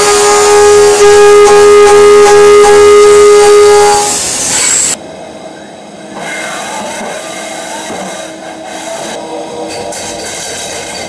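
End mill cutting a metal workpiece on a CNC milling machine, giving a loud, steady high-pitched whine with overtones. About five seconds in it cuts off suddenly, and a much quieter, steady machine running noise follows.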